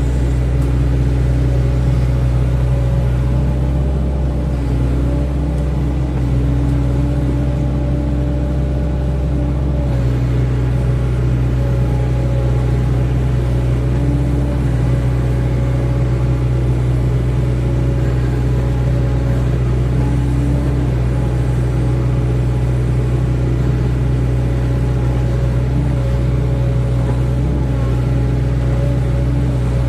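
Hydraulic excavator's diesel engine running steadily under working load, its pitch shifting slightly a few times.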